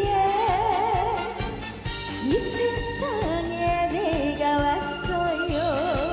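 A woman singing a trot song, with a wide, regular vibrato on her held notes, over backing music with a steady beat.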